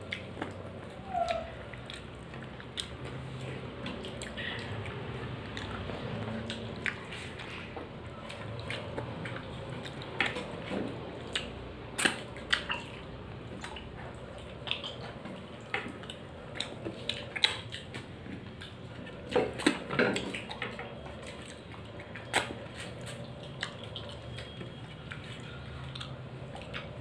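Eating by hand: fingers mixing rice and dal on a plate, with scattered small clicks and clinks against the plate and bowls and quiet chewing, over a low steady hum.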